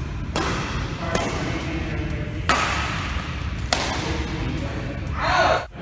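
Badminton rally in an echoing hall: about four sharp racket strikes on the shuttlecock, each with a short ring of reverberation, over a steady low rumble. Near the end a louder burst swells and cuts off suddenly.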